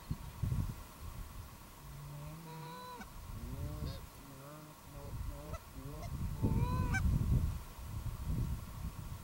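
Canada geese honking: a run of short honks and clucks that bunch up in the middle and are loudest near the end, over a low rumble of wind on the microphone.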